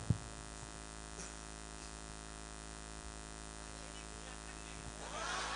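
Steady electrical hum from the stage PA system, made of many fixed tones. There is a short thump at the very start, and a murmur of voices rises near the end.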